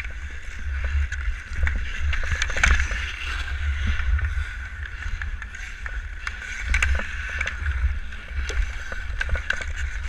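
Ice-hockey skates scraping and carving on outdoor ice, with scattered sharp clacks of sticks on the puck and ice. A steady low rumble of wind on the microphone runs underneath.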